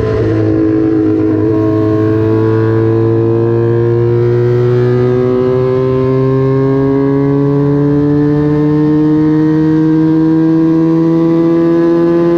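Small vintage racing motorcycle engine held at high revs under load, its pitch climbing slowly and steadily as the bike pulls.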